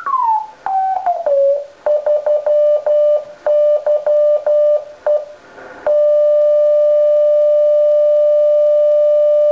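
Morse beacon signal from an Arduino-keyed 7.159 MHz crystal oscillator, heard as a CW tone through an HF transceiver's speaker. The tone slides down in pitch as the receiver is tuned onto it, then keys out dits and dahs at a steady pitch, then holds one long unbroken tone from about six seconds in.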